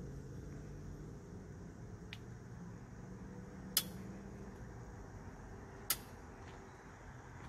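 Folding magnetic exercise bike being pedalled: a low, soft whir from the flywheel, broken by two sharp clicks about two seconds apart in the middle.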